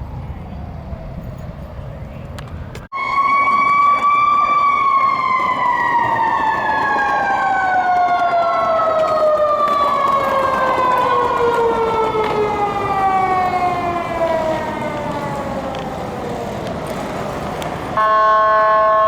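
Emergency vehicle siren: it comes in abruptly about three seconds in, rises briefly, then falls slowly in pitch for about thirteen seconds as it winds down. Before it a lower siren tone falls over traffic rumble, and near the end a steady chord-like horn tone starts.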